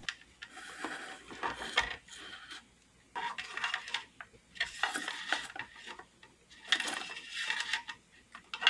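Plastic parts of a robot's head being pulled apart and handled by hand: irregular spells of clicking and rattling, each about a second long, with short quiet gaps between.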